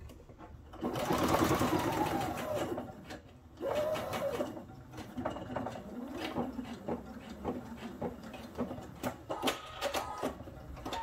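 Pfaff expression 3.5 computerised sewing machine stitching in short runs, stopping and starting several times. The first and loudest run is about a second in, its whine falling in pitch as it slows. Clicks come near the end.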